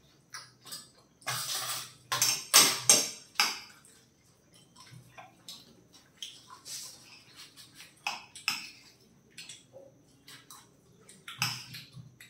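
Teaspoons scraping and clinking against plates, one of them steel, as parotta is cut up and scooped with the spoons: scattered short scrapes and clinks, with a run of louder scrapes a second or two in and again near the end.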